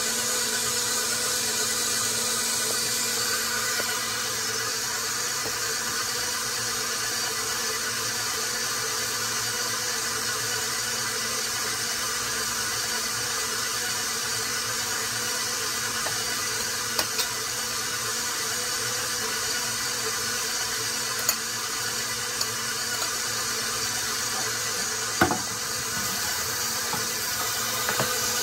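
KitchenAid 575-watt stand mixer running steadily on speed 2, its dough hook kneading bread dough in the steel bowl. A few sharp clicks of a metal spoon come through in the second half.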